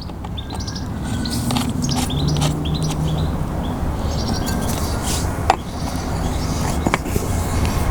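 Steady low engine rumble, growing gradually louder, with a few sharp clicks.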